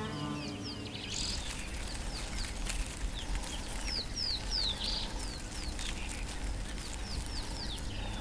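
A bird calling over and over in short, high, falling chirps, about two a second, over a low background rumble.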